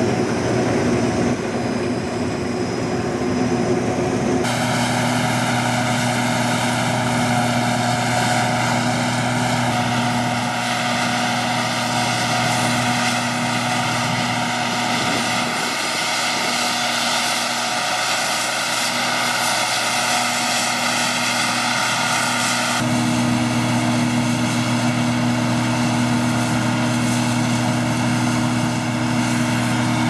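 Case IH 2388 Axial-Flow combine harvester threshing wheat: a steady diesel engine drone under several steady whines from the threshing machinery. The sound changes abruptly about four seconds in and again about seven seconds before the end.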